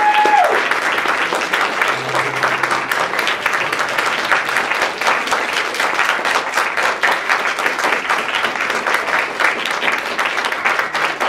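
An audience applauding: many hands clapping densely and unevenly.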